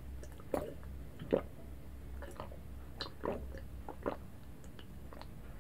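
A person gulping down a milky drink from a glass jar, close to the microphone: a string of separate swallows, about one or two a second.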